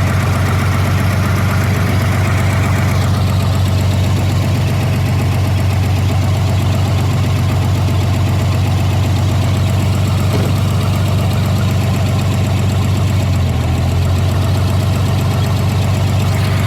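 A fishing boat's engine running steadily, a loud, even low drone.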